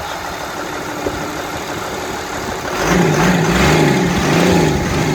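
Doosan excavator's diesel engine running steadily. About three seconds in it gets louder, joined by a pitched sound that rises and falls in even waves a little faster than once a second.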